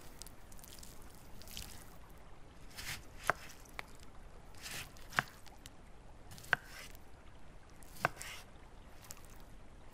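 Kitchen knife slicing fresh fruit on a wooden cutting board. Each cut is a soft, juicy rasp ending in a sharp click of the blade on the board, five clicks in all, about a second or more apart.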